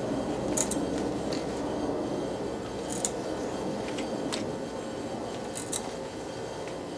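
Hand tap cutting 1/2-13 threads into a 3/8 in 4140 steel plate, the tap turned by hand in a tap guide. A few sharp metallic clicks and creaks come a second or more apart as the tap bites, over a steady background hiss.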